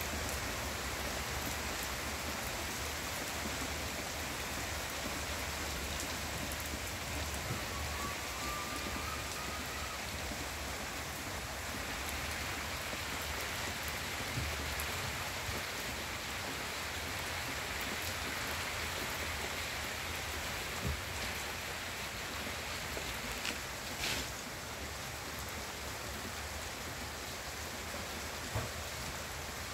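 Steady rain falling on garden leaves and ground, an even hiss with a few sharper drips landing close by now and then.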